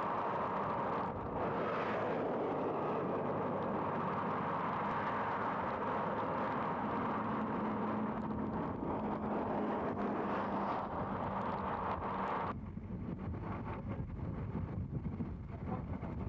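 Steady rushing noise of highway traffic and wind on the camera microphone. About twelve seconds in it cuts abruptly to a thinner, quieter rumble of wind.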